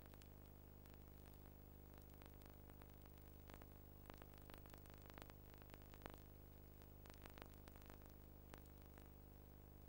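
Near silence: a faint steady low electrical hum with scattered faint clicks and crackles, the background noise of a home-movie transfer with no soundtrack.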